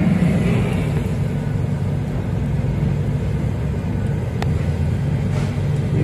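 Loud, steady, low rumbling drone of an unexplained 'strange sky sound', recorded over a city with a phone, with a single faint click about four seconds in.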